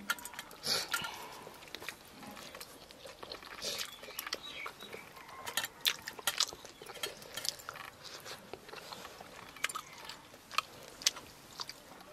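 Eating by hand from a steel plate: fingers mashing rice and curry and mouth sounds of chewing and lip-smacking, heard as irregular small clicks and squelches.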